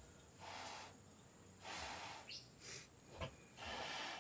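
A person blowing short breathy puffs of air into a newborn piglet's snout, four puffs about a second apart, to revive a piglet born without heartbeat or breathing.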